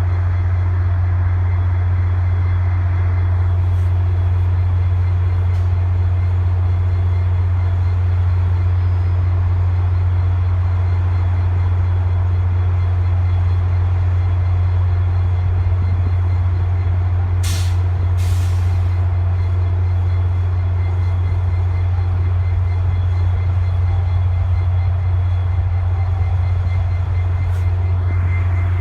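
Diesel passenger locomotive idling with a steady, deep hum, and two short sharp hisses of air brake air about halfway through.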